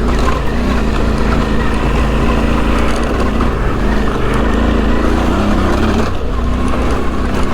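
A 2008 Suzuki V-Strom 650's 645 cc V-twin with an aftermarket Delkevic exhaust, pulling steadily in second gear up a rocky hill, easing off briefly about six seconds in.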